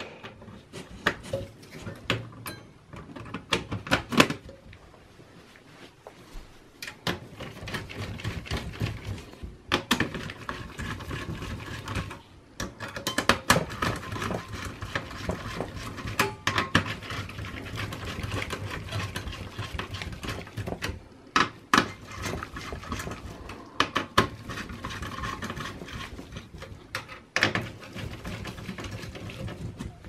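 A screwdriver tightening the screws of a CPU heatsink onto a computer motherboard: a run of small metal clicks, taps and knocks, with longer stretches of rasping from about seven seconds in as the screws are turned down.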